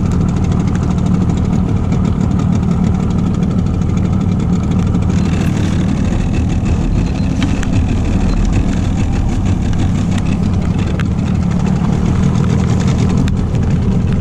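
Boat's outboard motor running steadily at low trolling speed, a continuous low hum; a rushing hiss joins about five seconds in.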